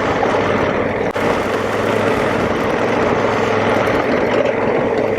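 2019 Honda Africa Twin's parallel-twin engine running steadily under way, under a steady rushing noise, with a brief dropout about a second in.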